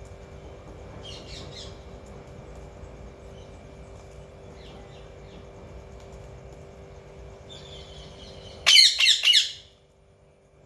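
Green pet parakeet calling: a few faint chirps, then about nine seconds in three loud squawks in quick succession.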